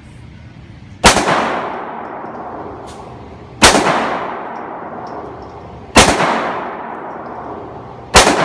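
Four handgun shots fired at a slow, steady pace, about two and a half seconds apart. Each sharp report is followed by a long ringing decay.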